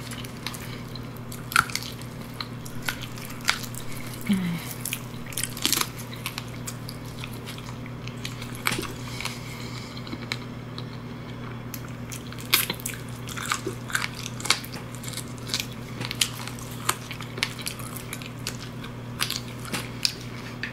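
Close-miked eating: biting into and chewing crab, with many short, sharp crackling clicks and wet mouth sounds at irregular intervals. A steady low hum runs underneath.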